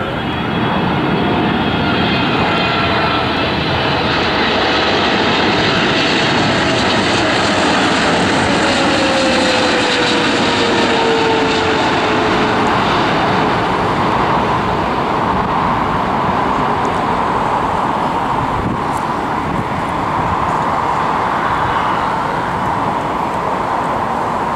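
Boeing 777-300 airliner's twin jet engines on landing approach, a loud steady rumble as it flies past. A whine falls in pitch as it passes, and the noise then turns higher and hissier as the jet moves away.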